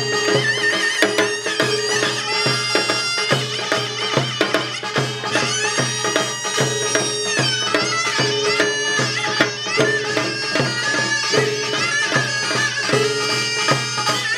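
Korean pungmul music: a shrill taepyeongso (conical shawm) plays a wavering, continuous melody over steady strokes of barrel and hand drums.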